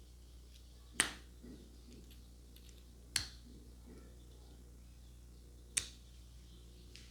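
Three sharp snapping cracks, about two to two and a half seconds apart, made by a barber's hands during a head massage, over a faint steady hum.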